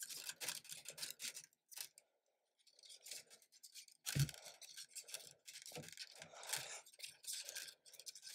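Faint, irregular scratching and rubbing of hands working a plastic 3D-printer extruder while pushing filament through it into its feed tube, with one low knock about four seconds in.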